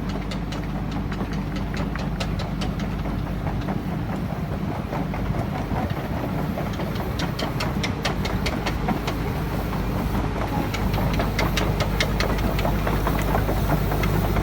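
Kobelco SK120 crawler excavator travelling: its diesel engine runs steadily while the steel tracks clank, the clanking growing denser and louder from about five seconds in.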